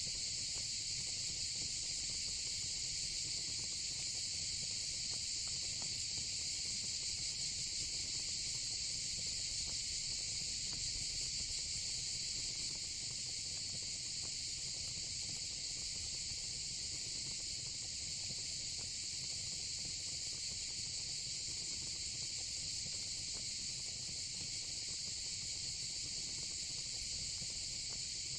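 Steady, unbroken chorus of night insects such as crickets, with a low rumble and a few faint crackles from a gas-and-wood style fire pit beneath it.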